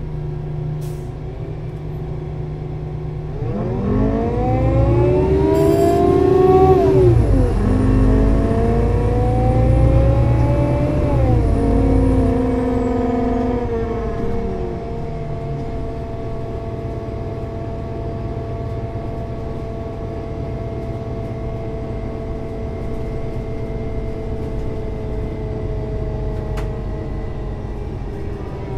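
Solaris Urbino 18 IV articulated bus with a DAF diesel engine and Voith DIWA 6 automatic gearbox accelerating. The engine pitch climbs, drops at a gear change about seven seconds in, climbs again and drops near twelve seconds. The bus then runs on with a steady hum and a faint even whine.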